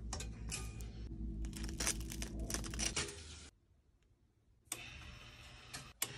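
Faint clicks and light metallic rattles as toast is lifted out of a stainless steel toaster's slots, over a low hum. The sound cuts out for about a second midway, then a few faint clicks follow.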